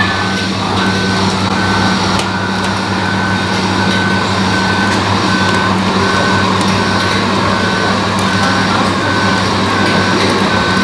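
A reversing alarm beeping steadily, about two beeps a second, over a steady low engine-like hum.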